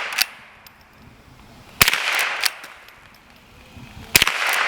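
Henry lever-action .22 rifle firing three shots about two seconds apart, each a sharp crack with a short fading tail.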